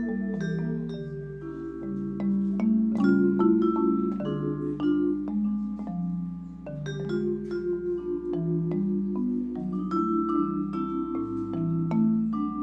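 Instrumental music: a steady flow of overlapping struck, ringing notes, mostly in the low and middle range, with no singing.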